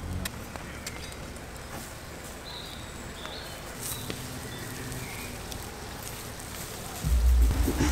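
Wood fire crackling with scattered sharp pops and ticks beneath whole lambs roasting on spits. A loud low rumble comes in near the end.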